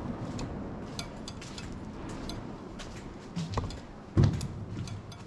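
Steady low rumble with scattered light clicks and knocks, and a heavier thump about four seconds in.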